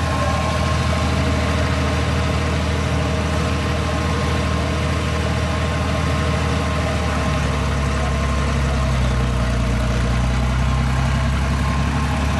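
A large red cab tractor's engine running steadily at low revs as it creeps forward, its low hum growing fuller and louder about halfway through as it draws nearer.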